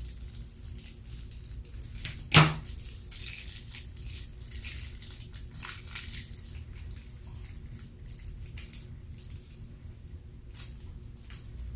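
Slime being squished and worked by hand, making many small crackles and clicks, with one sharp loud pop about two and a half seconds in.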